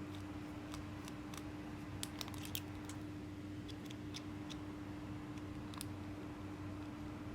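Scattered light clicks and taps of small fishing-reel parts (handle, knob, washers) being handled and fitted, with a few quick clicks together about two seconds in, over a steady low hum.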